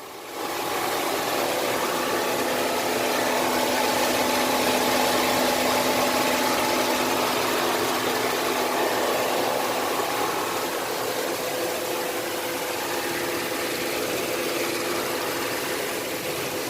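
A Genesis car running with a steady noise and a faint steady hum, the hum that the mechanic takes for a noisy differential.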